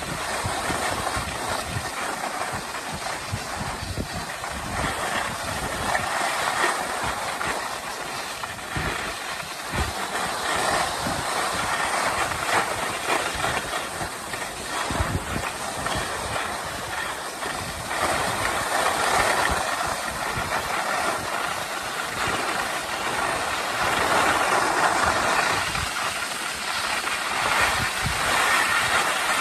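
Skis sliding and scraping over groomed snow on a continuous downhill run, a steady hiss that swells and fades every few seconds, with wind buffeting the microphone.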